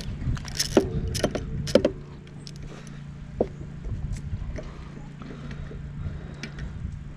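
Sharp metal clicks and clinks of hand tools working on a push mower, several in the first two seconds and one more about three and a half seconds in, with knocking and handling noise, over a steady low hum.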